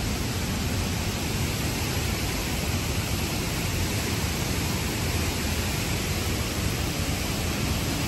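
Steady, even rush of running water.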